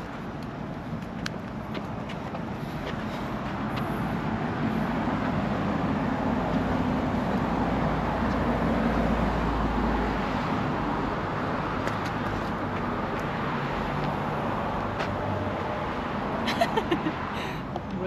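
Street traffic, swelling as a heavy vehicle passes with a deep engine rumble about halfway through, then easing off.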